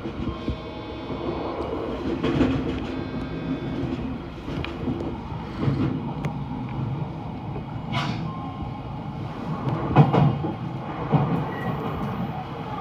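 Odakyu electric commuter train running, heard from inside the car: a steady rumble of wheels on the track with sharp knocks, the strongest about eight and ten seconds in. A brief high whine in the first few seconds.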